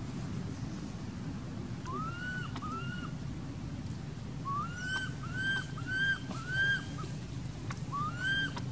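Baby macaque crying: a series of short, high squealing calls, each rising then falling in pitch. There are two calls about two seconds in, a run of five from about halfway, and one more near the end, over a low steady background rumble.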